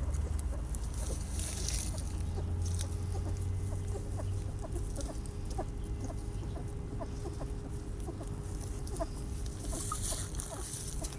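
A litter of young puppies nursing from their mother, giving many short, high squeaks scattered through the suckling.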